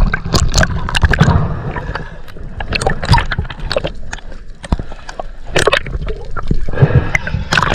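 Sea water sloshing and gurgling around a camera held at and just under the surface as a snorkeler swims and dives, with irregular sharp splashes, the loudest about five and a half seconds in and near the end.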